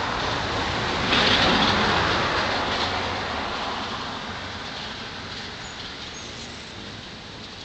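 A vehicle passing: a wash of noise that swells about a second in and then slowly fades away.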